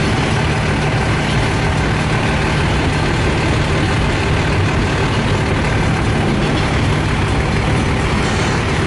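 Long double-stack intermodal freight train rolling past: a steady, loud rumble of wheels on the rails.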